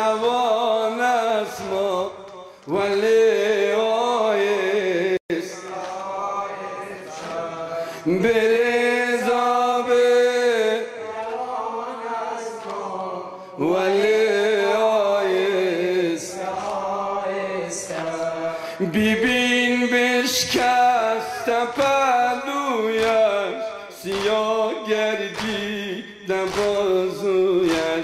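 A man chanting a Persian-language noha (Shia lament) into a microphone over a PA, in long, drawn-out, wavering phrases with short breaks for breath between lines.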